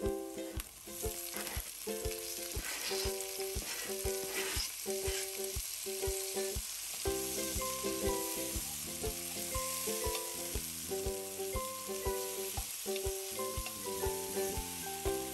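Grated onion, garlic and ginger sizzling and frying in oil in a nonstick pan, stirred with a plastic spatula; later chopped tomatoes are stirred into the sizzling mix. Light background music with a steady beat plays underneath.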